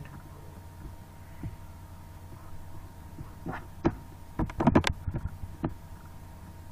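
Computer mouse clicked several times in quick succession, about three and a half to six seconds in, over a steady electrical hum.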